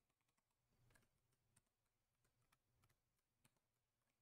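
Near silence, with faint, scattered key clicks of typing on a computer keyboard.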